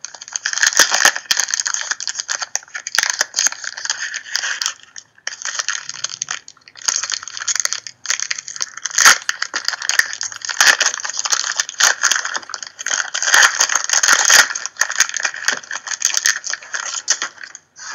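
Trading-card pack wrapper being crinkled and torn open right at the microphone: a dense crackling with sharp clicks and a few brief pauses.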